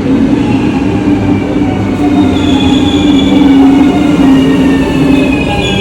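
NS VIRM double-decker electric train slowing to a stop, its traction motors whining in several high tones that slowly fall in pitch over a steady low hum.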